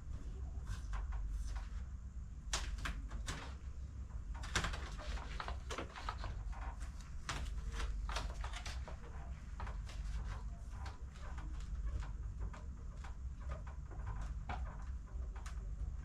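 Scattered short clicks and crinkling rustles over a steady low hum: vinyl wallpaper sticker film being handled and pressed onto a fridge.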